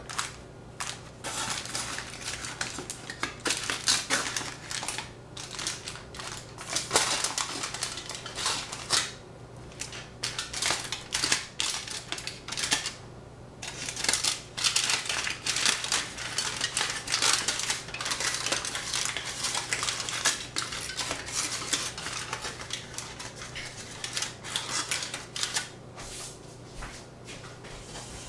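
Kitchen utensils clinking and scraping against dishes and pans in quick, irregular clicks, over a steady low hum.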